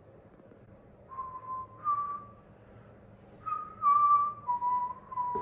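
A person whistling a short tune: a string of held notes that starts about a second in, with the pitch stepping up and then back down.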